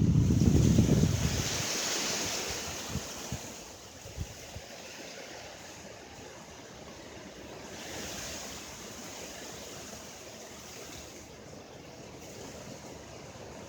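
Windstorm gusts rushing, with wind buffeting the microphone in a loud low rumble at the start. The rush swells about two seconds in and again about eight seconds in, then settles to a steady roar.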